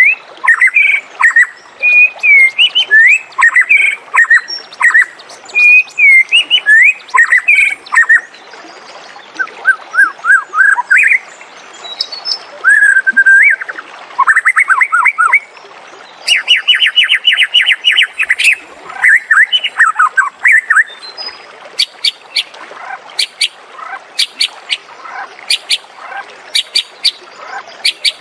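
White-rumped shama singing a long, varied song: loud whistled phrases, fast runs of repeated notes and trills, with many sharp high ticks in the last third.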